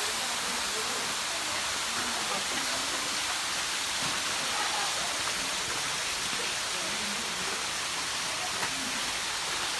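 Tsukimachi Falls waterfall rushing steadily, with faint voices of people underneath.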